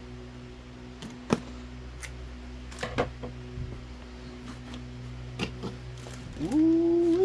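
Cardboard boxes of firecrackers being handled: scattered light taps and knocks over a steady low hum, then a short hummed "hmm" from the handler near the end.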